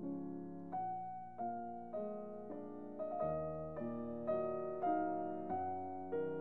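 Slow background piano music: single notes and chords struck about every half second to second, each one fading away.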